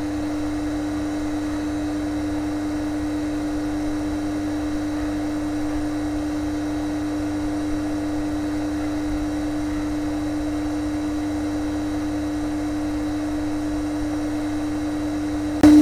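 Hot air rework station blowing at a low airflow setting (air 3, 300 °C): a steady blower hum with one clear unchanging tone, as it reheats (reflows) a phone's BGA CPU chip.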